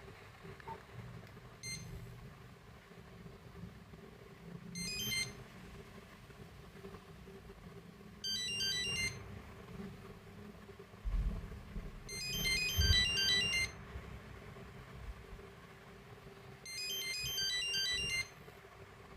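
Nokia 8250 mobile phone playing short snatches of beeping monophonic ringtone melodies from its speaker: a brief blip, then four phrases of quick stepped notes separated by pauses of a few seconds. A couple of low thumps come between the phrases.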